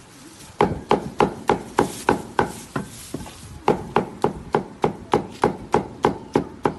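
Chinese cleaver chopping braised meat on a thick round wooden chopping block: quick, even chops at about three a second, with a short pause a little past the middle.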